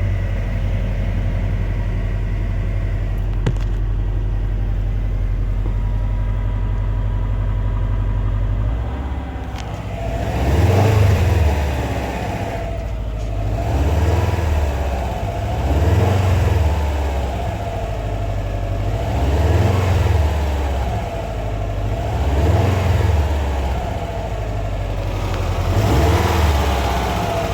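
2016 Subaru WRX STI's turbocharged 2.5-litre flat-four engine idling steadily, then revved briefly six times in the second half, each rev rising and falling. The owner is unsure whether the sound is normal for the STI engine or something for Subaru to look at.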